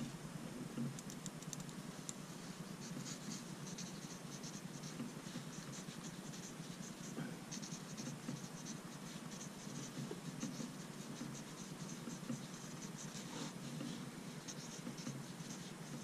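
Blue 0.7 mm colored lead of a PaperMate Clearpoint mechanical pencil scratching across copy paper in handwriting strokes. A faint, irregular run of short scratches.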